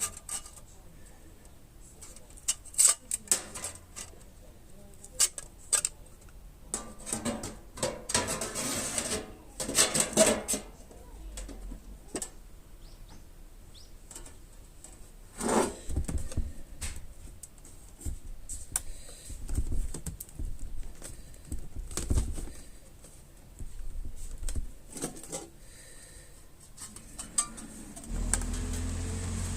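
Thin sheet-metal tin being handled and worked: scattered light metallic clinks and taps, with longer scraping noises about eight to ten seconds in.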